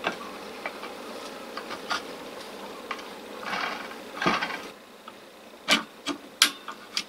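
Hand-assembly noises while the band saw's motor is fitted onto its mounting plate: light clicks and a rubbing scrape as the rubber seal and armature are pressed into place, then four sharp knocks near the end as the motor housing is set down and seated.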